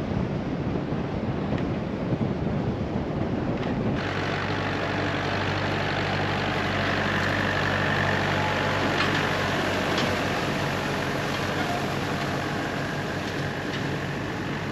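Small farm tractor carrying a feed bin, its diesel engine running as it drives past, with a steady low engine note coming in about four seconds in.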